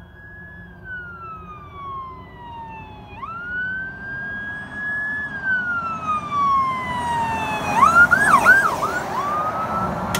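Electronic siren on a Ford F550 brush fire truck, sounding slow wails that fall and rise in pitch, then a few quick whoops about eight seconds in. It grows louder as the truck approaches, over its engine and road noise.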